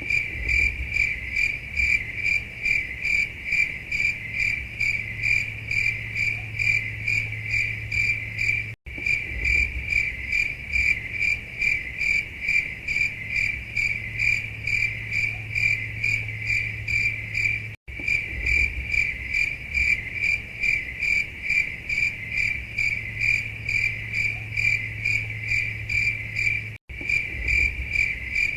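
Looped cricket chirping, the stock 'awkward silence' sound effect: a steady, rapid, evenly repeating high chirp. The sound cuts out for an instant about every nine seconds where the loop restarts.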